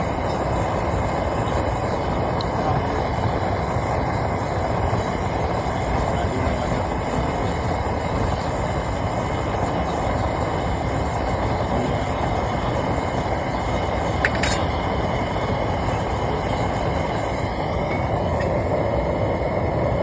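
Gas burner firing a homemade bucket melting furnace: a steady rushing flame noise. One short click comes about two thirds of the way through.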